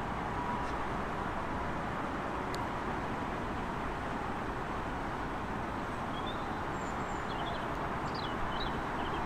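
Steady background rumble of distant road traffic, with a few faint bird chirps in the last few seconds.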